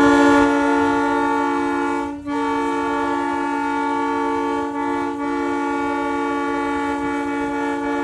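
Trolley snow sweeper's horn sounded by a pull cord, held in one long steady blast of several tones at once, briefly broken about two seconds in and dipping twice more around five seconds in.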